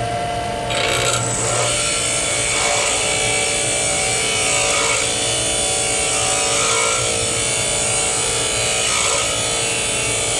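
DeWalt bench grinder running, and from about a second in a lathe tool bit is held against the spinning abrasive wheel: a steady grinding hiss over the motor's hum, swelling slightly every couple of seconds. The bit's side is being ground at a slight angle to give clearance on the back of a grooving tool.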